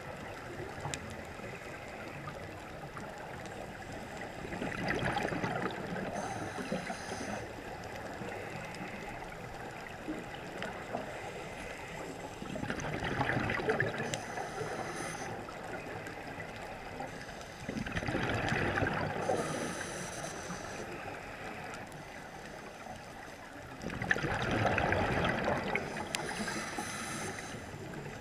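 Scuba diver breathing through a regulator, heard underwater: four loud bursts of exhaled bubbles about six seconds apart, with fainter high hisses of inhaling between them over a steady underwater hiss.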